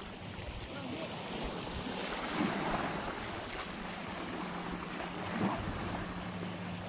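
Small sea waves washing against the rocks of a breakwater, with wind buffeting the microphone.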